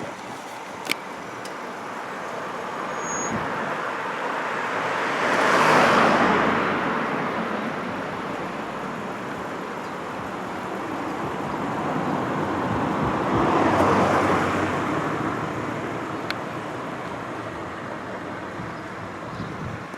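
Two road vehicles passing by one after the other, each growing louder and fading away, the first loudest about six seconds in and the second about fourteen seconds in, over steady traffic noise. A single sharp click about a second in.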